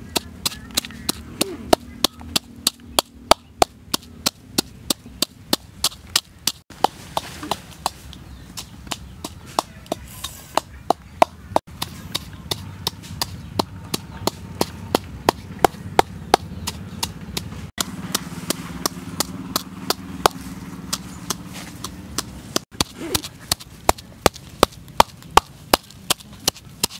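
Wooden pestle pounding in a coconut-shell mortar, crushing chilies and salt: a steady run of sharp knocks, about three to four a second.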